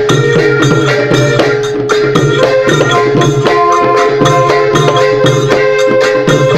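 Thai klong yao long-drum ensemble music: loud, rapid hand-drum strokes in a fast, even rhythm under held melodic tones.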